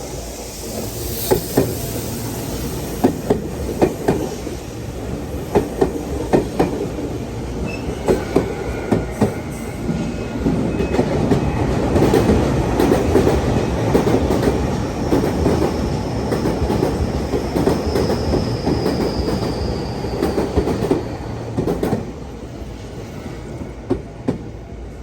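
A Tokyu electric train passing at a level crossing. Its wheels clack over the rail joints many times, the running rumble is loudest around the middle, and a faint high wheel squeal slides slightly lower in the second half.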